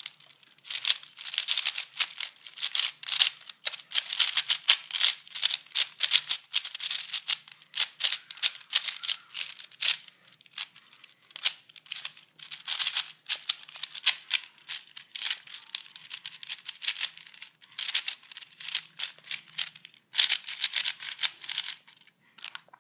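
4x4 Rubik's cube being turned fast in the hands: dense runs of plastic clicking and clacking from the layers, with short pauses between turn sequences. The clicking stops shortly before the end as the solve finishes.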